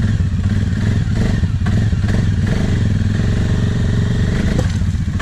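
ATV engine idling steadily, with a few light clatters.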